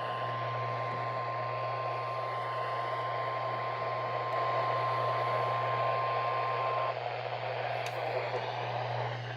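NOAA Weather Radio warning alarm tone, a single steady 1050 Hz tone heard through radio hiss over a steady low hum. It cuts off abruptly about seven seconds in, leaving only the hiss and hum. The tone signals that a severe thunderstorm warning is about to be broadcast.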